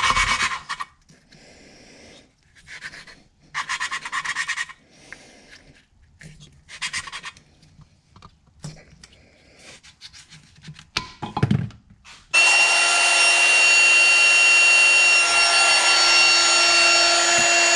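Short, intermittent gritty rubbing strokes of a valve being hand-lapped into its seat on a Toyota 7M-GTE cylinder head. About twelve seconds in, a loud steady mechanical whine with several fixed tones starts suddenly and keeps running.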